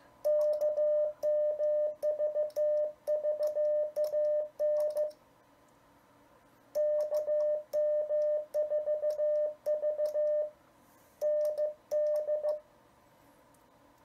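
Icom IC-7300's CW sidetone: a steady tone of about 600 Hz keyed on and off in Morse dits and dahs from a Begali Expedition iambic paddle, with soft clicks on each element. It comes as two runs of sending, with a pause of about a second and a half after the first, then stops about two seconds before the end. Break-in is switched off, so only the sidetone sounds and nothing is transmitted.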